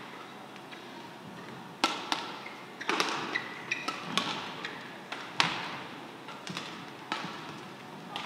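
A badminton rally: rackets strike the shuttlecock with sharp cracks, about six hits roughly a second apart starting about two seconds in. Short squeaks of shoes on the court come between the shots.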